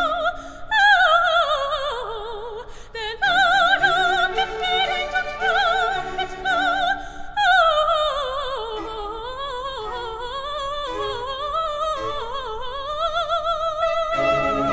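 Operatic soprano singing with a wide vibrato, holding high notes and sweeping down through long descending runs over a light orchestral accompaniment.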